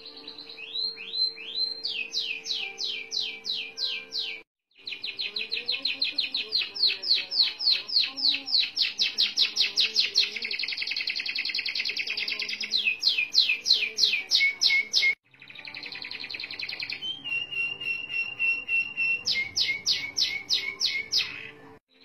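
Domestic canary singing long rolling trills: fast strings of short descending notes, several a second, running together into a dense continuous roll near the middle, with two brief breaks.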